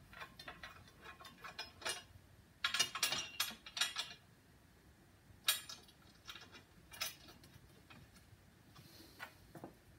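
Steel bolts, nuts and washers clinking and rattling against the steel base of a hydraulic press as they are fitted through holes and threaded on by hand. Scattered sharp clicks, with a quick cluster about three seconds in and a few single clinks later.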